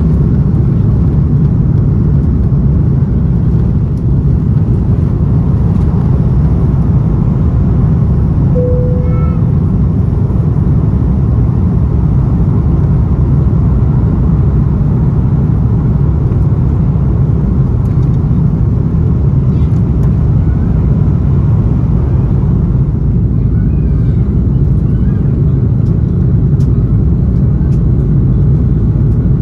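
Cabin noise of an Airbus A330-200's two Pratt & Whitney PW4168A turbofans at takeoff power during liftoff and initial climb: a loud, steady, deep rumble heard from inside the cabin.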